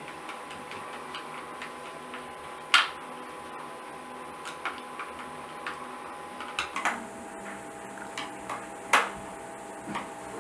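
Screws being driven by hand with a screwdriver into the plastic back cover of an Orpat OCH-1400 convector heater: scattered sharp clicks and taps over a steady hum, the loudest clicks about three seconds in and about nine seconds in, with a small cluster near seven seconds.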